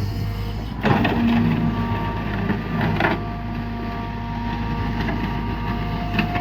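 Kobelco Yutani SK120 excavator's diesel engine running steadily under work, with a few sharp knocks: one about a second in, one around three seconds, and one near the end.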